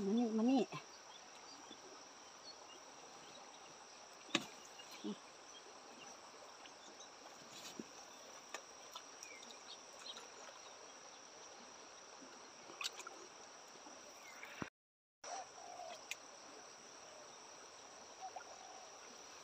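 Quiet outdoor background dominated by a steady, high, unbroken insect drone, with a faint hiss underneath and a few light clicks. A brief vocal sound comes at the very start, and the sound cuts out completely for a moment about 15 seconds in.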